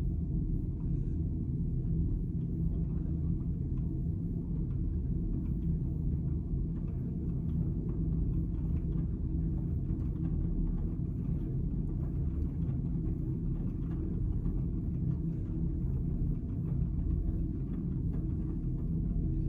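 Miele W1 front-loading washing machine in its main wash: a steady low rumble of the motor turning the drum full of towels, with faint light ticking and rustling above it.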